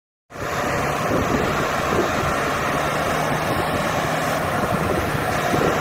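Farm tractor's engine running steadily as it tows a loaded boat trailer through soft beach sand, with wind rumbling on the microphone.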